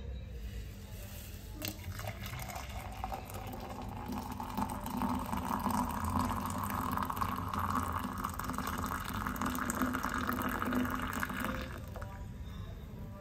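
Water poured in a thin stream into a ceramic mug of coffee mix, splashing and frothing as the mug fills. The pour stops abruptly near the end.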